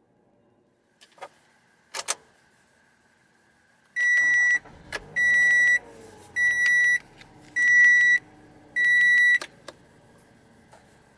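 A 2014 Toyota Camry's gasoline engine starts about four seconds in on a cold start and settles to idle, heard from inside the cabin. Over it the car's warning chime beeps five times, evenly spaced and louder than the engine. Two faint clicks come a couple of seconds before the start.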